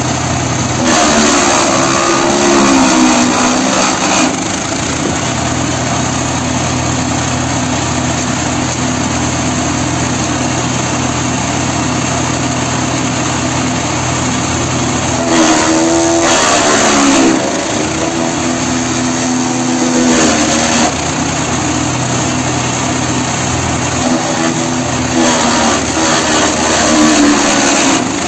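Small engine of a GTS 1500E cardboard tube shredder running at a steady speed, with four spells of louder grinding as cardboard tubes are fed in and shredded, the engine note dipping under the load each time and recovering.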